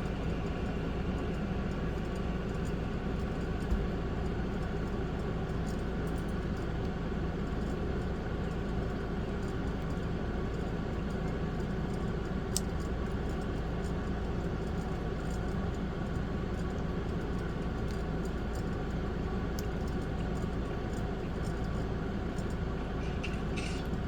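Steady mechanical hum throughout, with a few faint clicks of plastic Lego pieces being handled and pressed together.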